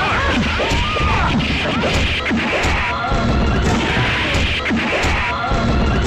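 Fight-scene punch sound effects: a rapid string of hard hits, over bending cries.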